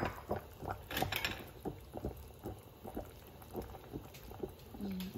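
Beef bulalo broth boiling in an open stockpot, bubbling with many small irregular pops, with a louder knock about a second in.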